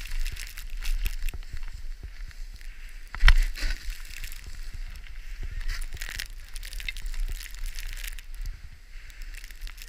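Edges scraping and chattering over hard, icy snow while sliding downhill, with wind rumbling on the microphone. A sharp knock comes about three seconds in.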